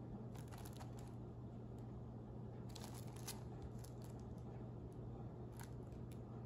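Plastic shrink wrap on a 4K Ultra HD Blu-ray case crinkling and clicking faintly as the case is handled and turned over in the hands. The crackles come in short clusters about half a second in, around three seconds in, and near the end, over a steady low hum.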